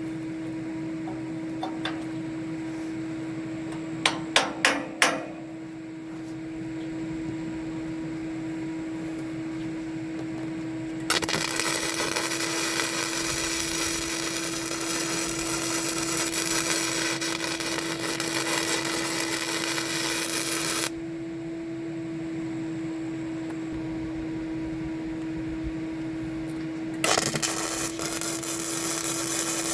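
Four quick knocks, like hammer blows, then a power tool runs steadily for about ten seconds, cuts off, and starts again near the end, all over a steady hum.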